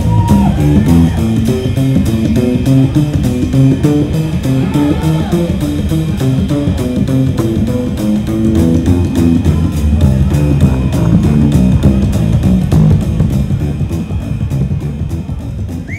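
Live rockabilly band playing an instrumental stretch: guitar and bass guitar over a steady beat, fading out near the end.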